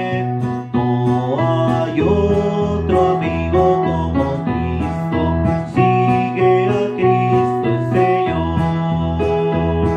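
Electronic keyboard and acoustic guitar playing a hymn together, the keyboard holding sustained chords.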